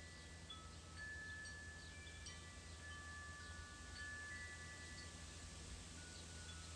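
Wind chimes ringing faintly, several tubes sounding long, overlapping tones of different pitches that start one after another.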